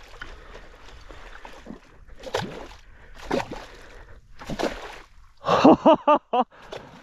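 A man breathing hard, three heavy breaths about a second apart, then a quick run of breathless laughter near the end, over a low hiss of water.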